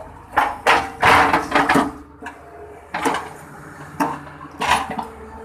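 Crawler excavator at work: the engine's steady hum under a run of irregular knocks and rough scraping bursts as the bucket digs into earth.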